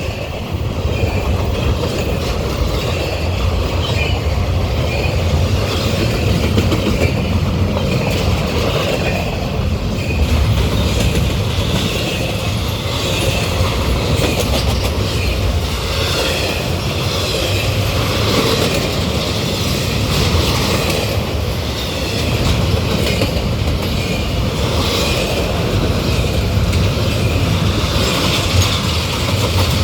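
Norfolk Southern intermodal freight cars rolling past at speed: a steady, loud rumble of wheels on rail with repeated clacks.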